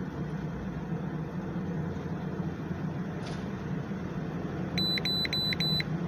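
A steady low hum, then near the end four quick high electronic beeps from the Innova 5410 OBD-II scan tool as it finishes erasing the stored trouble codes.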